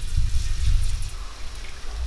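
Deep-frying in a pan of hot oil: sizzling and crackling, over a loud low rumble.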